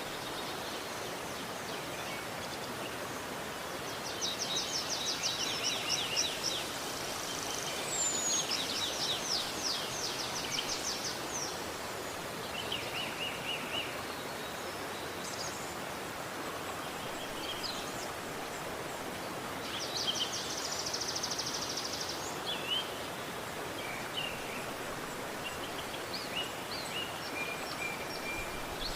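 A river running with a steady rush of water, while songbirds call over it in several rapid trilled phrases and scattered short chirps.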